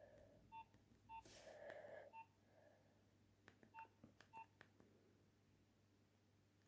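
Faint keypad beeps from a Nokia 2760 mobile phone as its keys are pressed: five short beeps at the same pitch, irregularly spaced, with a few soft clicks and a brief hiss about a second in.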